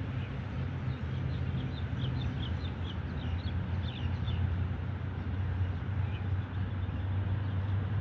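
Steady low rumble of distant road traffic, with a small bird giving a quick run of short, high chirps from about one to four and a half seconds in.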